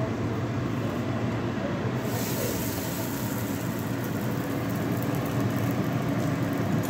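Gas stove burner running with a steady low rush. About two seconds in, a hiss of sizzling starts as the raw cabbage paratha dough lands on the hot dry tawa, and it goes on.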